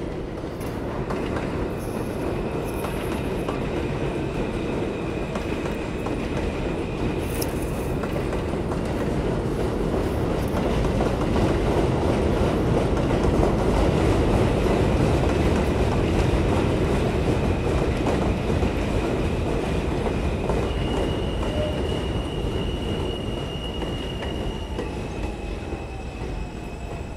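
New York City subway train of R160 cars running past on an elevated steel viaduct: a steady rumble and rattle that builds to its loudest about halfway through and then eases. Steady high-pitched wheel squeal runs over it, a second higher squeal joining about two-thirds of the way in.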